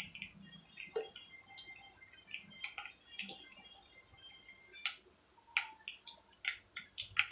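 Chili flakes frying in hot mustard oil in a kadai on a gas stove: scattered, irregular pops and crackles of the oil, a few sharper ones about a second in, around five seconds in and near the end.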